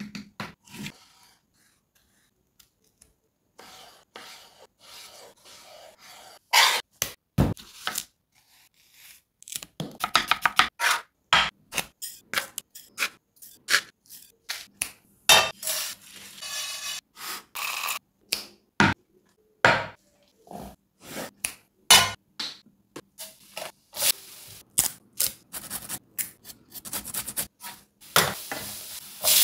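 Close-up cooking sounds: a spatula and spoons clicking and scraping against a glass bowl, a plate and a frying pan in many short sharp strokes. Near the end, oil in the pan starts to hiss as frying onions sizzle.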